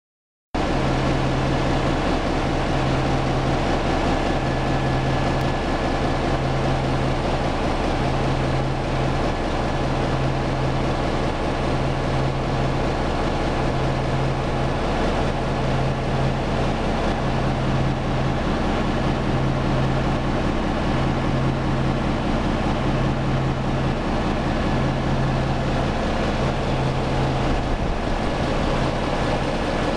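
Large 608 kVA diesel generator engine running steadily: a loud, even drone with a slow throb about every second and a half.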